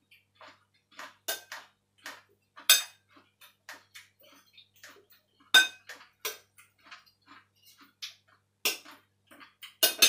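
Metal spoon clinking against a bowl while tossing a noodle salad: irregular sharp clinks, the loudest about three, five and a half, and nine seconds in.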